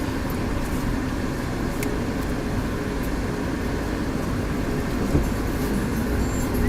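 Mitsubishi Pajero under way, steady engine and road noise with a constant low hum running through it. The hum is the kind of abnormal noise that the owner traced to a faulty solenoid valve.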